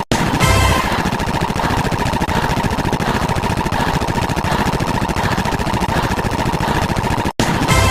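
A 'you win' video-game sound effect layered many times over into a dense, harsh wall of noise. It cuts out briefly just after the start and again near the end, where the loop restarts with a short burst of tones and a low thump.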